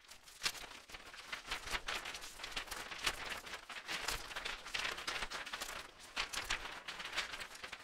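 Intro title-sequence sound effects: a fast, irregular string of noisy hits and crackles.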